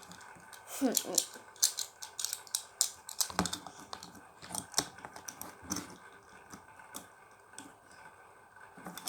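Irregular light clicks and taps of a spinning top being handled, the top and its string readied for the next spin.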